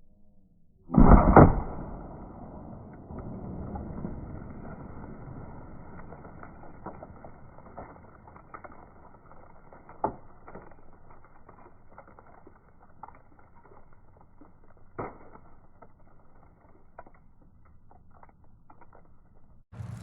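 An air rifle shot about a second in, loud, with a second crack right after it, then a low rumble fading over a few seconds. After that come scattered light clicks and knocks, one sharper knock about ten seconds in and another at fifteen.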